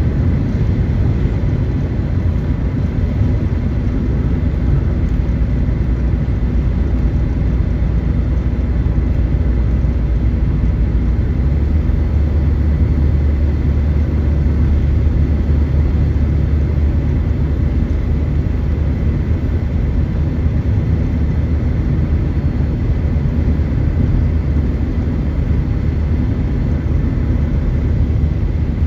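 Steady road and engine drone of a car cruising on a highway, heard from inside the cabin: a loud low rumble with tyre noise. Its low hum steps up slightly in pitch about eleven seconds in.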